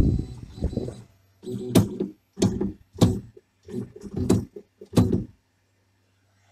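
3D printer stepper motors making a series of short moves, each a brief buzz ending in a click or knock, about six in all, with a faint steady hum between them.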